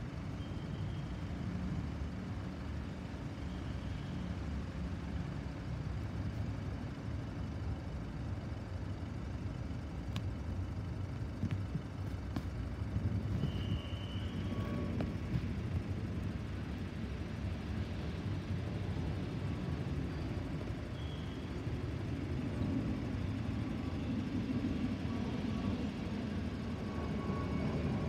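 Low, steady rumble of a climbing Boeing 777-300ER's GE90 jet engines, swelling somewhat near the end as the airliner comes closer overhead. A few short high chirps sound over it.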